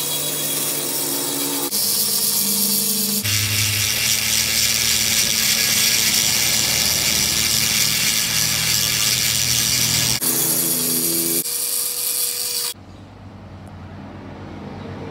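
Handheld rotary die grinder with a burr, running at speed and cutting into the cast-aluminium crankcase of a Honda PCX, in several short bursts. It makes a loud, steady high-pitched grinding whine. The grinding stops near the end.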